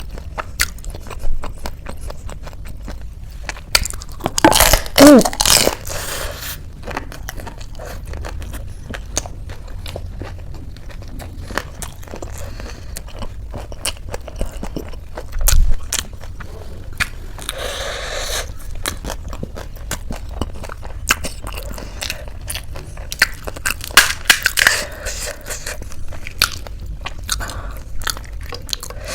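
Close-miked eating: biting, crunching and chewing of food in many sharp crackles, with louder spells about five seconds in and again near the end.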